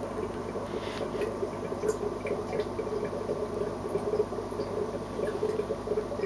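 Steady water bubbling and pattering over a low, even hum, typical of an aquarium's air or filter pump running.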